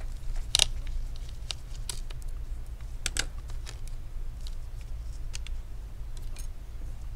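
Irregular small clicks and taps from hands handling the Wi-Fi card's antenna cable connectors on a laptop motherboard, with a cluster of clicks about three seconds in, over a steady low hum.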